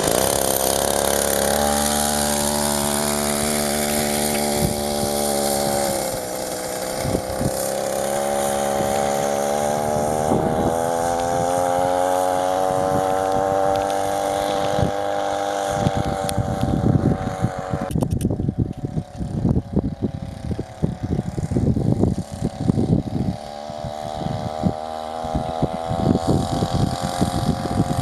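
Chainsaw's small two-stroke engine powering a homemade moped, running with its pitch rising and falling as the speed changes. In the second half it is broken by irregular bursts of noise.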